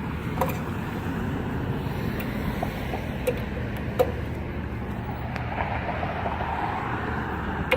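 Crosswalk push button being pressed, with several short sharp clicks scattered over steady road traffic noise.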